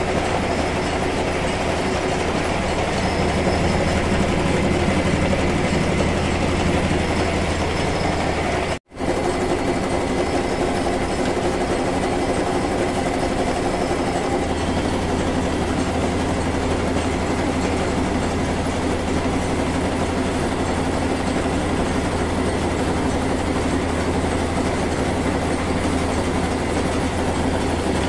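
1 HP belt-driven single-cylinder air compressor pump running steadily with its cylinder head off, driven by its electric motor to bed in newly fitted piston rings. The sound drops out for an instant about nine seconds in.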